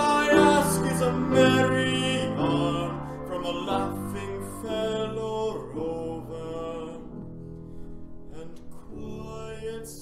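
Piano playing a slow interlude alone, with struck chords that ring out and grow gradually quieter.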